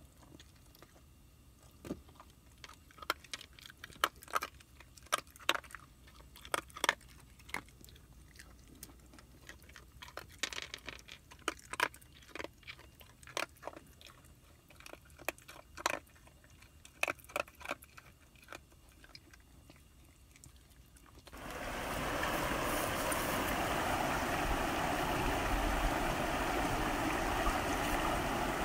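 A dog eating from a metal bowl, with irregular crunches and clicks as it chews its food. About 21 seconds in, this gives way to the steady rush of a shallow creek running over rocks.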